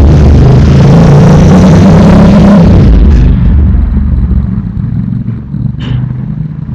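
A very loud motor vehicle engine running close by, then fading away over a second or two about three seconds in. Two short sharp clicks follow near the end.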